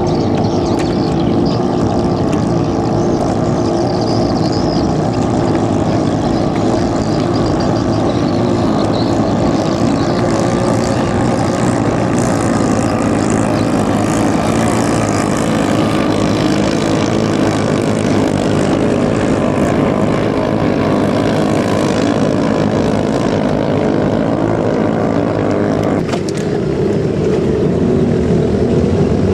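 Small 6–7 hp engines of ketinting longtail racing boats running at full speed, a loud steady drone. The engine tone shifts about three seconds before the end as another boat is heard.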